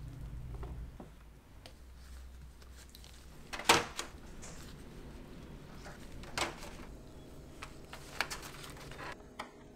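Kitchen handling sounds: a few sharp taps and knocks as ladyfingers are dipped in espresso and set into a clear plastic container beside a glass bowl, the loudest a little under 4 s in, over a low steady hum that stops near the end.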